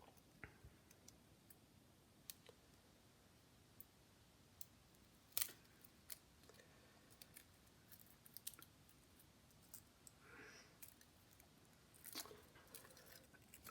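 Faint, scattered small clicks and taps of precision tools on the iPod Nano's internal parts. The clearest click comes about halfway through, with a few more near the end, over near silence.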